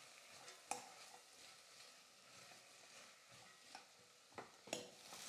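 Near silence, broken by a few faint clicks and scrapes of a steel ladle against a stainless steel pot as chopped cabbage is stirred.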